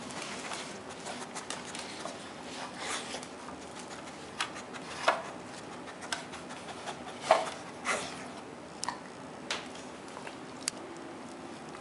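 Plastic clacks and knocks from a Kyjen Star Spinner treat puzzle as a dog noses and paws its layers round and shoves it about on a tile floor. Scattered sharp knocks, the loudest about five seconds in and twice more around seven to eight seconds in.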